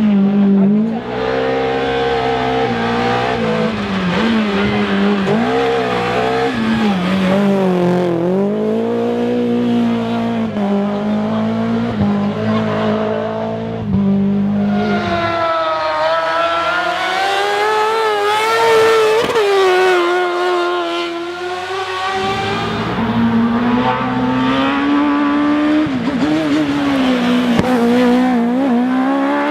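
Race car engines revving hard, their pitch climbing and dropping again and again through gear changes and braking on a slalom course. From about the middle of the stretch a higher-pitched engine sound takes over for several seconds, then the lower engine returns.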